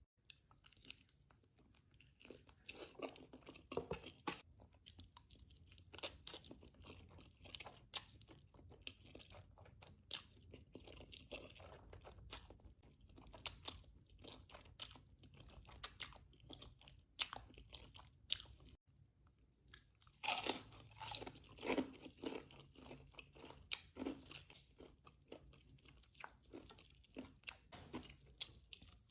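Close-miked eating: a person biting and chewing crunchy food in many sharp crunches, with a louder run of crunches about two-thirds of the way through.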